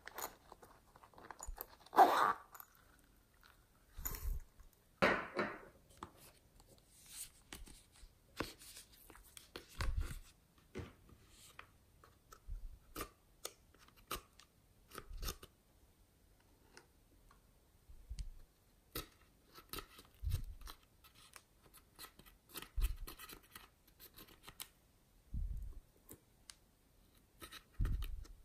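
Close-up handling sounds: a plastic spatula scraping and picking eyeshadow out of a makeup palette, with scattered clicks, scrapes and soft taps. Two louder scrapes come in the first few seconds, as a pink plastic case is opened.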